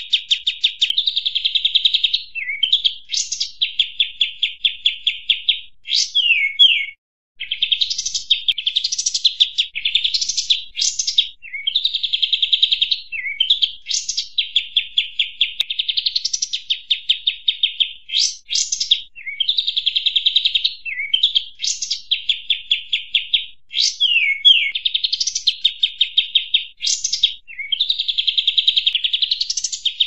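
Bird-lure recording of the 'kapas tembak' songbird: fast chattering trills repeated phrase after phrase, with sharp whistled upswept and downswept notes between them. There is a short break about seven seconds in.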